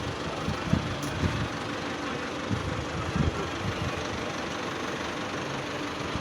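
Concrete mixer machine running with a steady engine noise, with a few low thuds in the first three seconds or so.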